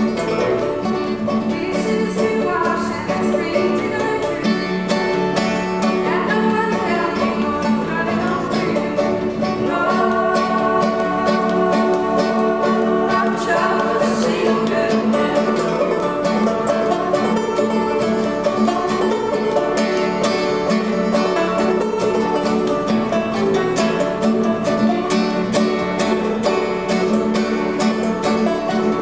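Open-back banjo played clawhammer style together with a strummed acoustic guitar, an old-time tune played live.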